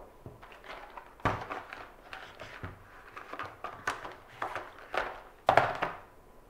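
Irregular clicks and knocks of small hard objects being handled and set down, about a dozen of them, the loudest a sharp knock about five and a half seconds in.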